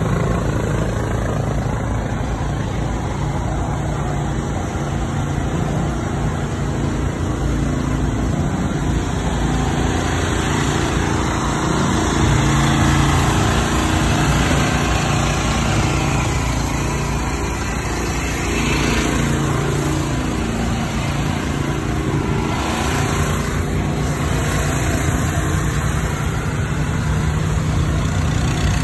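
Small engines running steadily: portable generators on the race teams' pit carts, with a continuous low hum.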